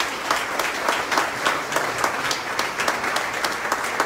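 Audience applauding: many people clapping steadily together, loud and dense.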